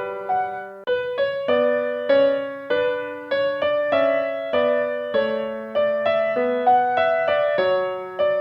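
Background music: a gentle melody played on piano or electric piano, notes struck about every half second and fading.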